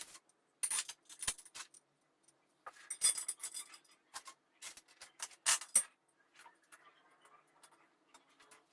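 Short clicks, clinks and scrapes of flat-pack furniture parts and small metal fittings being handled and tightened, in several clusters over the first six seconds, then fainter rustling.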